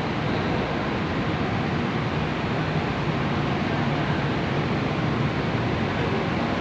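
Steady drone of a ferry's machinery on its enclosed vehicle deck: an even rushing noise with a low hum under it, unchanging throughout.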